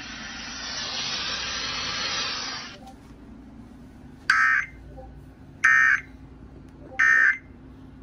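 Steady radio hiss that stops about three seconds in, then three short buzzing data bursts about 1.3 seconds apart: the Emergency Alert System end-of-message tones, marking the end of the flash flood warning broadcast.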